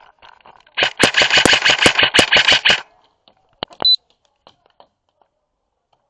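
Airsoft gun firing a rapid burst of about two seconds, then two single shots a moment later.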